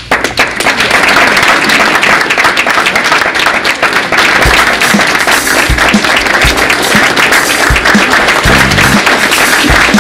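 Audience applauding, with background music laid over it; low drum beats come in about halfway through.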